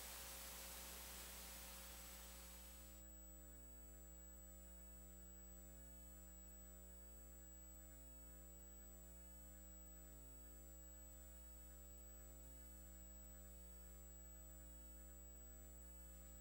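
Near silence: a steady low electrical hum, with faint hiss that drops away about three seconds in.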